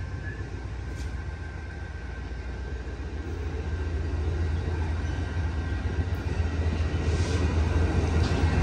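Amtrak passenger train rolling on the rails: a steady low rumble of wheels and cars with a faint thin high ringing tone, gradually getting louder.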